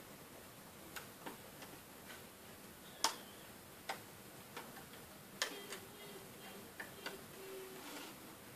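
Irregular light clicks and taps of a plastic hook tool against the pegs of a plastic Wonder Loom as rubber bands are lifted and looped over. About ten clicks, the sharpest about three seconds in, several close together a little past halfway.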